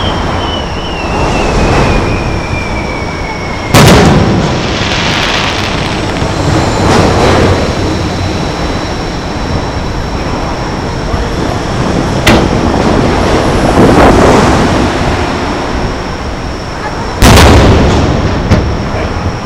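Aerial fireworks shells: a whistle falling in pitch for about four seconds, then a loud bang, a sharper crack about twelve seconds in, and another loud bang near the end. Each burst is followed by rolling echoes over a steady low noise.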